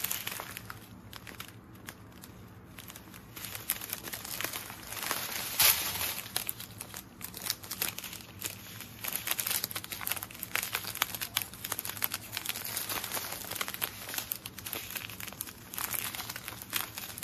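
Small resealable plastic bags of diamond-painting drills crinkling as they are handled, an irregular run of crackles with a sharper one about six seconds in.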